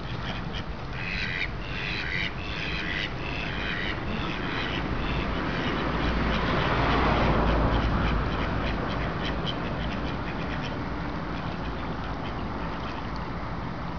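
Mallard ducks quacking, a run of about six calls in quick succession in the first few seconds. Around the middle a rushing noise swells up and fades away.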